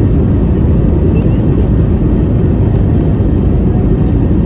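Airbus A320 jet engines and airframe rumbling steadily during takeoff, heard from inside the passenger cabin as a loud, even, low roar.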